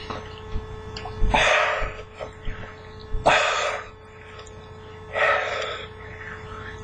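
A man's sharp, forceful breaths through an open mouth, three loud gasping blows about two seconds apart, with a faint steady hum underneath.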